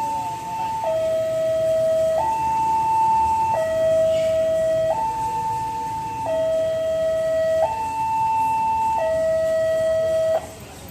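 Railway level-crossing warning alarm: an electronic signal alternating between a lower and a higher tone, each held about a second and a half. It sounds while the crossing barrier arm moves and cuts off suddenly near the end.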